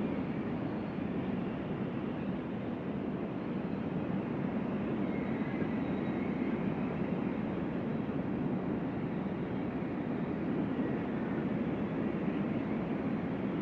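Strong wind blowing, a steady low rush without pauses.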